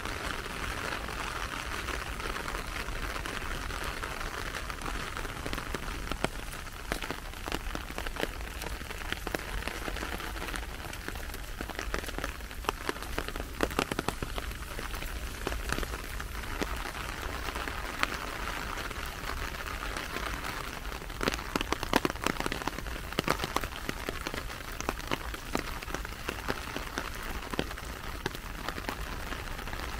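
Steady rain hiss with many sharp raindrop taps close by, thickest a little past two-thirds of the way through.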